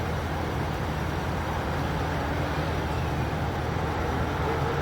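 Steady low rumble of road traffic and running engines, with an even hum underneath.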